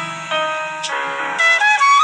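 Background instrumental music: a melody of quickly changing notes.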